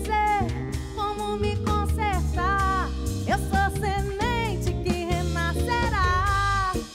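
Live song: a woman's singing voice carrying a wavering, gliding melody over band accompaniment with a steady low bass.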